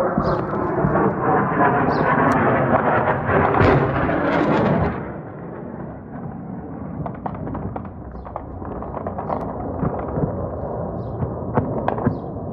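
A military jet passing overhead with a loud roar for about the first five seconds, then many sharp cracks of gunfire scattered over a lower steady rumble to the end.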